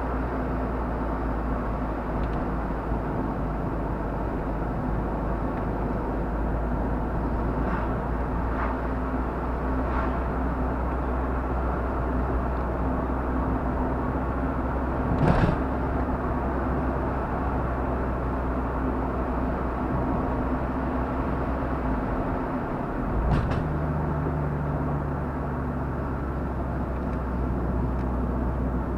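Car driving, heard from inside the cabin: a steady low engine hum and road noise, with two sharp knocks, about fifteen and twenty-three seconds in. The engine note changes around the second knock.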